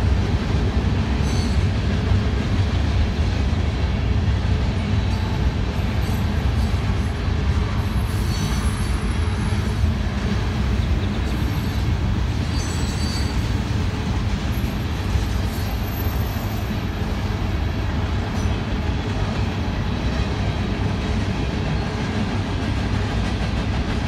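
Freight cars of a manifest train rolling past: a steady low rumble of steel wheels on rail, with a few brief, faint wheel squeals.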